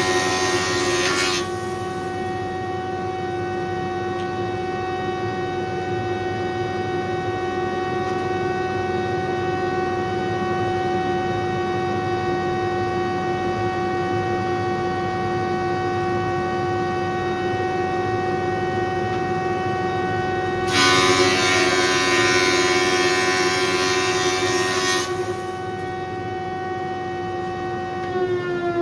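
20-inch Powermatic thickness planer running with a steady whine. A louder rush of cutting sounds in the first second and again for about four seconds starting around 21 seconds in, as oak board passes through the cutterhead. Near the end the whine starts dropping in pitch as the planer winds down.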